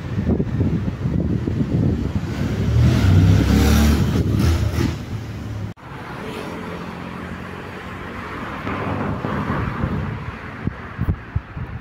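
Sports car engines on a city street. A deep engine rumble swells to its loudest about three to four seconds in, then after an abrupt cut a steadier engine note runs on with road noise.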